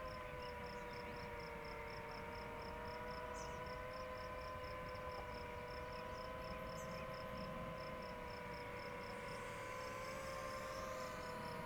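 DJI FPV drone's motors and propellers whining at a distance, a steady hum of several tones that drifts gently in pitch as the throttle changes.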